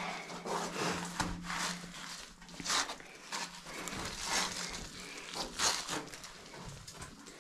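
A person breathing hard after climbing mine ladders, a hissing breath about every second and a half, with scattered rustling and small knocks of clothing and gear.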